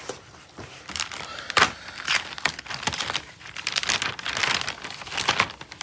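Packaging crinkling and rustling in irregular bursts as a replacement laptop motherboard is unwrapped by hand.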